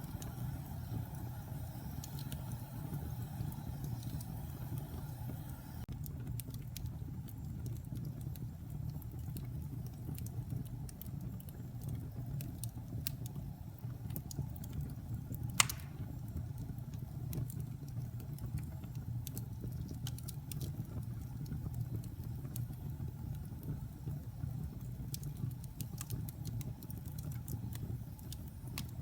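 Wood fire burning in a fireplace: a steady low rumble of flames with scattered small crackles, and one sharp pop about halfway through.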